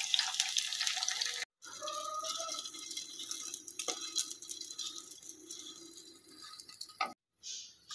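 Lachha paratha sizzling in ghee on a flat iron tava over low heat, a soft crackling hiss with fine pops. The sound cuts out abruptly twice.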